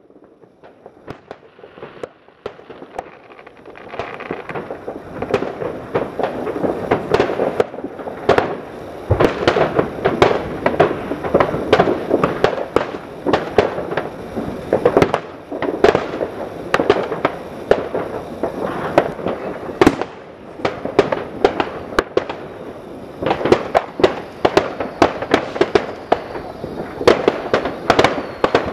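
Neighbourhood New Year's fireworks: a dense, continuous barrage of bangs, pops and crackles from many rockets and firecrackers going off at once. It builds up over the first few seconds.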